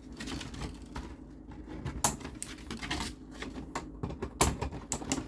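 Small plastic toy figures and vehicle parts being handled, with scattered sharp clicks and knocks of plastic.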